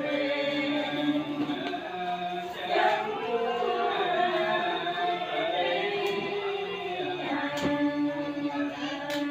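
A group of voices chanting a Cao Đài prayer together in long, drawn-out held tones. Two sharp knocks sound near the end.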